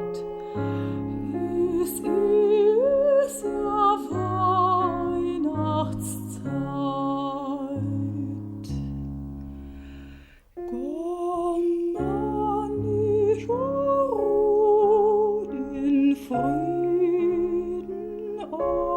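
Soprano singing a slow, tender song with wide vibrato, sliding up into held notes, over soft instrumental accompaniment; the music dips briefly about halfway through.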